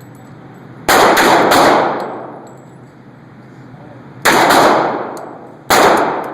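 Gunshots from a .45 calibre pistol at close range: three quick shots about a second in, two more around four seconds, and a single shot near the end. Each shot rings out in a long echo.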